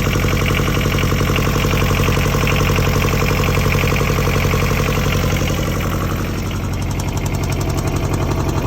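Kubota Z482 two-cylinder diesel engine of a mini excavator running steadily with an even, fast pulse, its sound thinning a little about six seconds in.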